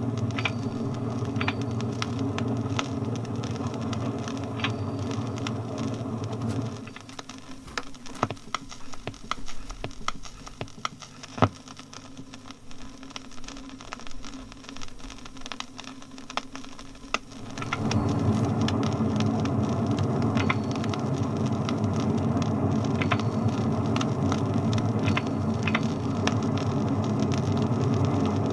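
Steady running noise heard from inside a motor bus. About seven seconds in it drops to a much quieter stretch with scattered clicks and knocks. About eighteen seconds in it rises back to the full steady rumble.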